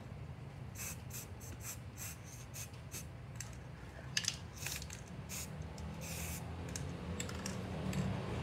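Aerosol spray paint can giving a run of short spray bursts, a few a second, with a longer hiss a little past the middle, over a low steady hum.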